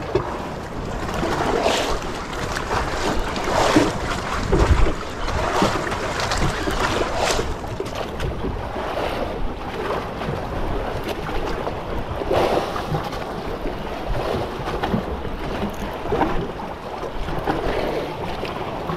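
Wind on the microphone and sea waves around a small fishing boat, swelling in irregular surges every few seconds, with a low thump about five seconds in.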